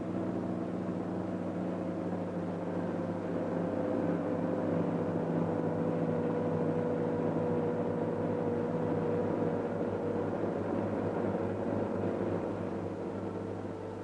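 Log truck's engine running steadily as it hauls a load of logs along the road, swelling a little mid-way and fading near the end.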